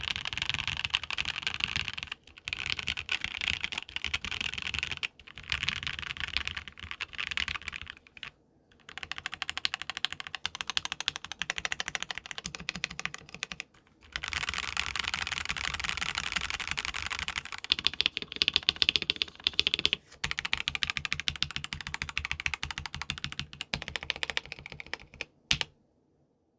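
Typing on a KBD67 Lite R2 mechanical keyboard fitted with lubed Gateron Ink Black v2 linear switches and GMK Laser keycaps: fast keystrokes in bursts with short pauses between them. A run of sharper, louder strokes comes about two-thirds of the way through, and the typing stops shortly before the end.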